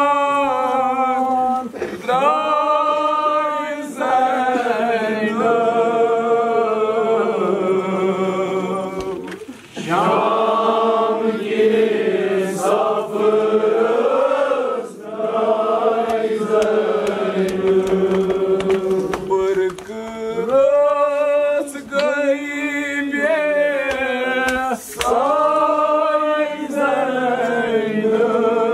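Men's voices chanting a noha, a Muharram mourning elegy for Zainab, unaccompanied. The lines are long and drawn-out, with wavering held notes and short pauses between phrases.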